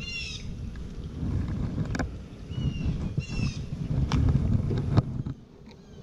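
Low steady rumble of wind on the microphone, with sharp clicks about two, four and five seconds in as a plastic beetle trap and metal hive tool are handled. Short high chirps from a bird come near the start and again about halfway through.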